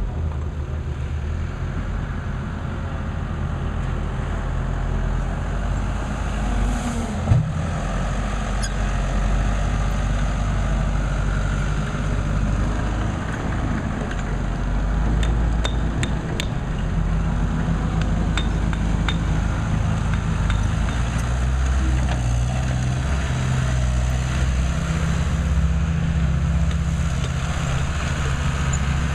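Construction machinery engine running steadily, with scattered metallic clinks and knocks and one louder knock about seven seconds in.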